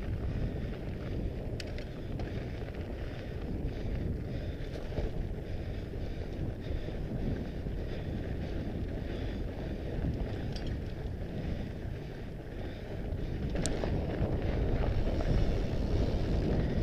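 Wind buffeting an action camera's microphone over the rumble of fat-bike tyres rolling on a gravel track, with a few sharp clicks. The noise grows louder about three-quarters of the way through.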